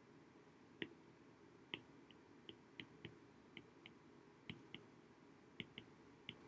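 Faint, irregular clicks of a stylus tip tapping on an iPad's glass screen while handwriting, about a dozen in all, over near silence.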